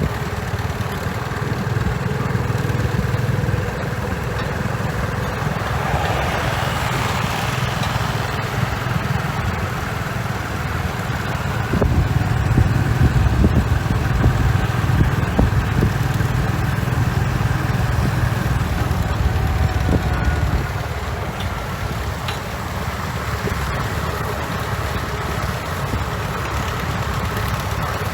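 Komatsu bulldozer's diesel engine running steadily while working, rising in level for several seconds around the middle, with a few sharp clanks.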